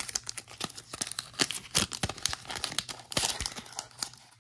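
Foil wrapper of a Pokémon card booster pack crinkling and tearing as fingers work it open: a quick, uneven run of crackles and small rips from a wrapper that is hard to open.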